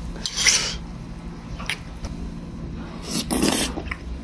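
Metal spoon scraping and stirring in an earthenware bowl of pork gukbap as rice is mixed into the soup, with a few light clicks. About three seconds in comes a louder, short, hissy burst as a spoonful is slurped.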